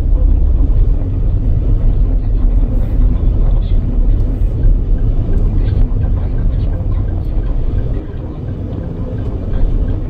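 Car driving, heard from inside the cabin: a steady low rumble of engine and tyre noise that eases slightly about eight seconds in.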